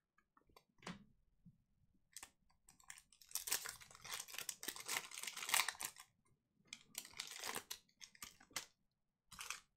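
A shiny Panini Prizm Premier League card pack's wrapper being handled and torn open by hand: faint, scattered crinkles, then a dense run of crackling a few seconds in, then more crackles.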